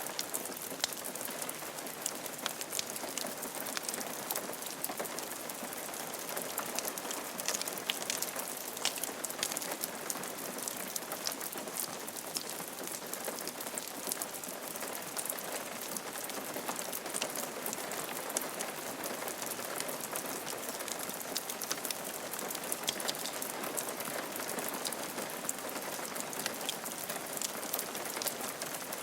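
Steady rain falling on a roof, a constant hiss with many sharp ticks of individual drops.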